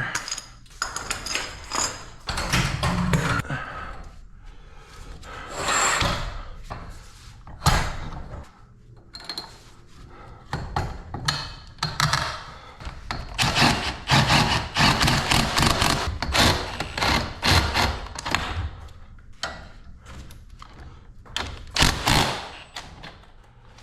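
Garage door torsion-spring hardware being fitted on the torsion tube: irregular metal knocks and clunks, with stretches of scraping and rubbing as the springs and cable drum are slid into place and fastened.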